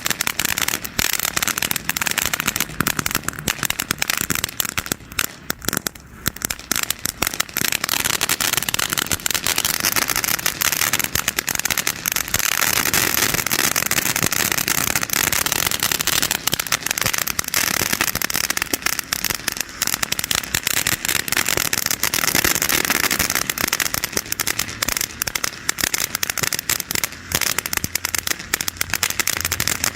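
FireHawk 'Witch Craft' consumer fountain firework spraying sparks with a dense, continuous crackle. The crackle thins briefly a few seconds in, then builds fuller again.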